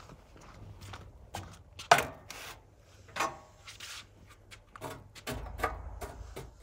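Irregular rubbing and scraping with scattered knocks, the sharpest about two seconds in.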